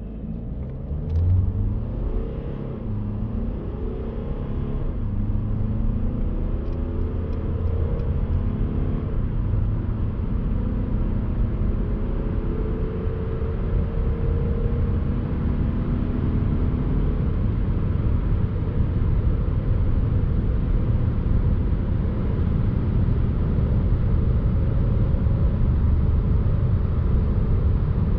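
Mercedes-Benz C 220 d's four-cylinder turbodiesel under full-throttle acceleration, heard from inside the cabin. The engine note climbs and drops back at each automatic upshift several times. It then settles into a steady, growing drone with rising wind and tyre noise at high speed.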